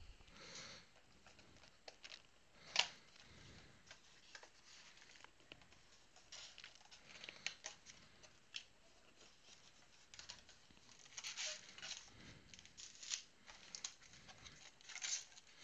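Faint rustling, tearing and crinkling of a cardboard trading-card box being opened and its wrapped card packs taken out, with scattered light clicks. One sharp tap about three seconds in is the loudest sound.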